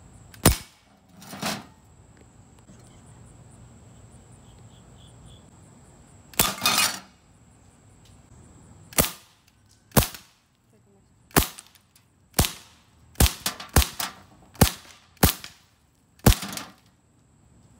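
BB gun shots and ceramic dishes cracking and shattering, about a dozen sharp cracks spread through, with a longer breaking crash about six seconds in and a quick run of shots near the end.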